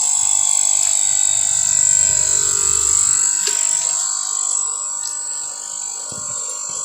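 Insects droning steadily in one high-pitched note, with a couple of faint clicks and a brief low rumble underneath.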